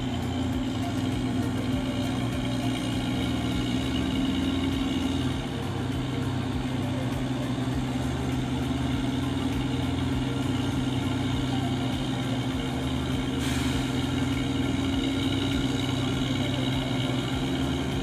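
Mobile crane's engine running steadily, its note shifting slightly about five seconds in, with one brief sharp sound near the thirteen-second mark.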